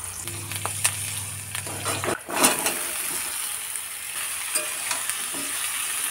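Panch phoron spices landing in hot oil in an aluminium wok. About two seconds in, the cut taro stolons go in with a sudden loud burst of sizzling, followed by steady frying sizzle as a metal spatula stirs and scrapes the pan.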